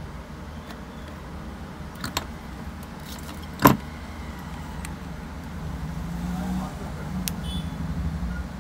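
A few sharp clicks and taps of small tools and parts being handled during a phone teardown, over a steady low rumble. The loudest click comes just under halfway through, and the rumble grows louder in the last few seconds.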